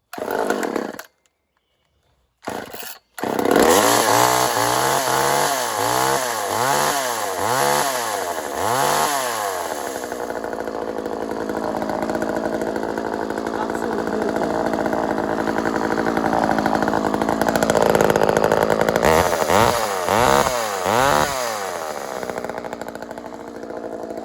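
Craftsman two-stroke chainsaw cold-starting: two short bursts of firing, then it catches and runs. Its throttle is blipped about six times in quick succession, it holds a steady high run, gets three more blips, and settles to a lower run.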